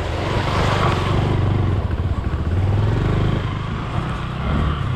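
Motorcycle engine running as the bike is ridden over a rough, stony track.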